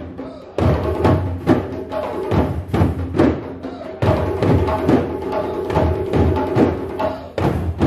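Djembe drums played by hand: a quick running rhythm of sharp strokes, over a bed of steadier held music.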